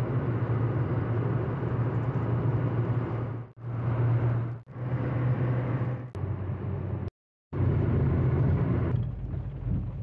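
A motor running steadily with a low hum and rushing noise, heard in several short clips cut together, with abrupt breaks between them.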